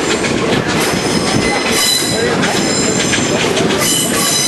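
Steel wheels of a steam-hauled excursion train rumbling steadily along the rails. A high-pitched wheel squeal swells about two seconds in and again near the end, the flanges grinding on the curving canyon track.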